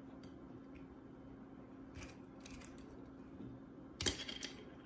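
Quiet room tone with a faint steady hum, a soft knock about two seconds in, and a short cluster of knocks and clicks about four seconds in as food and a kitchen knife are handled on a cutting board.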